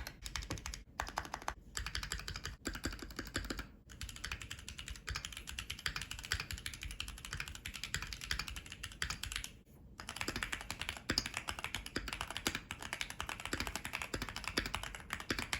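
Fast, continuous typing on a Keychron Q1 mechanical keyboard fitted with the tape mod: layers of painter's tape over the PCB and foam inside, meant to give a deeper "thock" key sound. The typing breaks off briefly about 4 and 10 seconds in.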